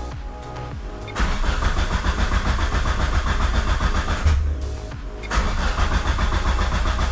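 Mitsubishi 4G63 turbo four-cylinder in a 2G Eclipse GSX cranking on the starter in two tries of about three seconds each, with a short pause between, and not catching. The owner suspects it is flooded with too much fuel.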